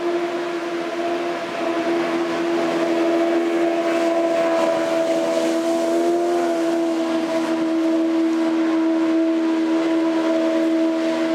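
Motorboat engine running at high speed up the stream, a loud steady drone that grows over the first two seconds. Its pitch drops slightly about six and a half seconds in as the boat passes.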